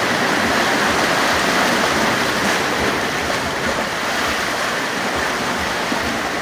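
Steady rush of fast-moving seawater.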